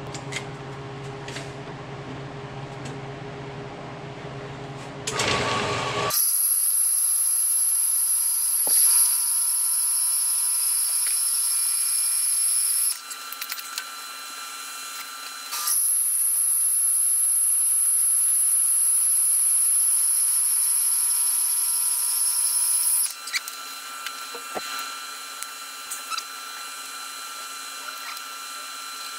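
Delta horizontal band saw running and cutting metal blocks: a steady machine hum with level tones, broken by two loud stretches of high-pitched whine several seconds long, the first starting about six seconds in and the second ending about twenty-three seconds in, with a brief drop between them.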